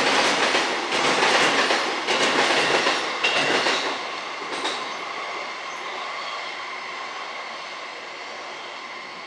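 JR East E657 series limited express train moving along the platform, its wheels clattering over rail joints for about the first four seconds. The sound then fades, leaving a steady high whine.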